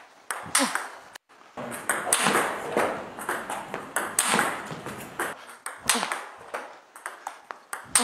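Table tennis ball being struck in repeated forehand topspin loops against backspin: sharp clicks of the celluloid/plastic ball off the rubber racket and the table top, several strokes in quick succession.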